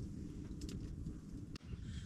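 Wood fire crackling, with scattered sharp snaps over a steady low rumble.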